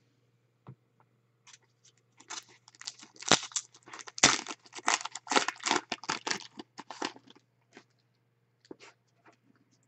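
Trading card pack wrapper being torn open and crinkled by hand: a dense run of quick crackles from about two seconds in to about seven seconds in, with a few soft clicks before and after.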